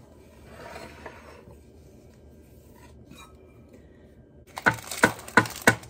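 Wire whisk stirring a mixture in a plastic mixing bowl: a soft rubbing early on, then a run of about four sharp knocks of the whisk against the bowl near the end.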